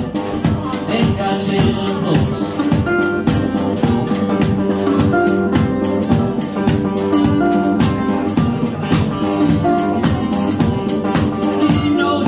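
Live band playing an instrumental passage: a resonator guitar over a steady kick-drum beat, with held melody notes from a lead instrument.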